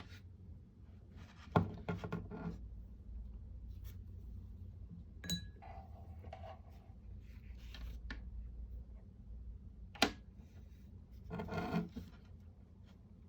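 Small tools and parts handled on a hard work surface: three sharp taps, one with a short ring, and two brief spells of rattling and rubbing.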